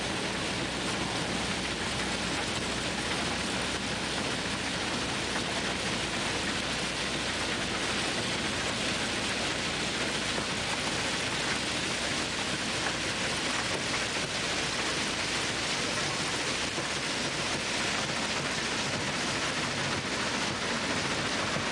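Crushed-stone railway ballast pouring from a track maintenance machine's chute onto the track bed: a steady, even rush of falling stones, with the machine running.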